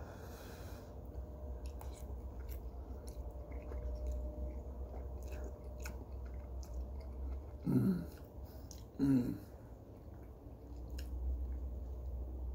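A man chewing a mouthful of spicy instant noodles, with soft small mouth clicks, and two short hums from his throat at about 8 and 9 seconds in.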